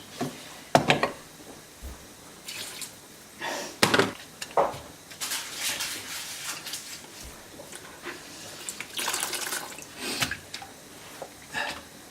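Murky water being bailed out of a kitchen sink by hand: intermittent splashing and dripping, with a few sharp knocks.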